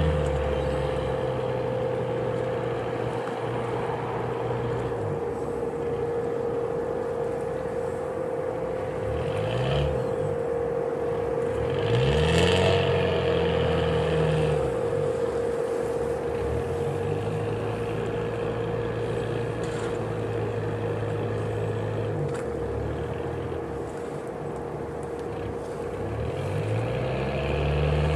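Fishing tug's inboard engine running at low speed, its pitch rising and falling several times as the throttle is worked to ease the boat in to a dock, with a louder surge about twelve seconds in. A steady high whine runs underneath.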